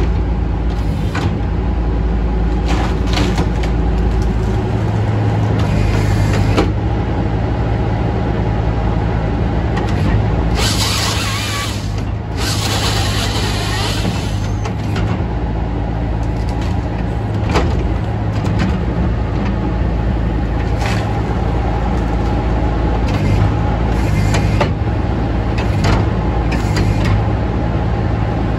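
An engine running steadily at an even speed, with two short bursts of hissing noise about ten and twelve seconds in.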